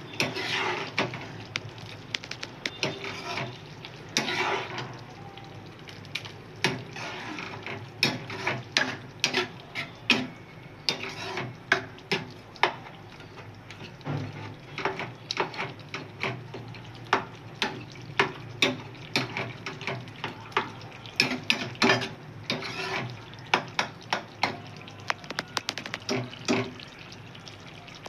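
Spoon stirring ridge gourd curry in a pan: many quick clinks and scrapes against the pan over a steady sizzle of the cooking vegetables.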